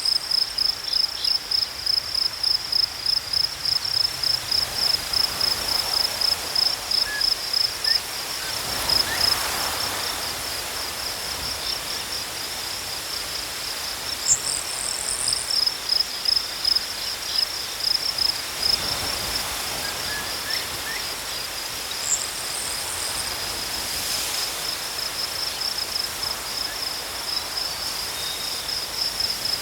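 Crickets chirping in a fast, steady, high-pitched pulsing rhythm, the pulses most distinct in the first third and then running together into a more even trill.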